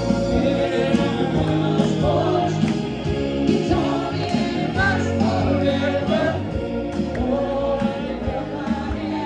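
Live cover band playing amplified music with singing over a steady drum beat.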